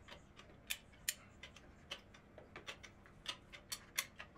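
Faint, irregular sharp clicks and ticks, several a second at times, as silicone sealant is squeezed from a cartridge in lines onto the backs of plastic signs.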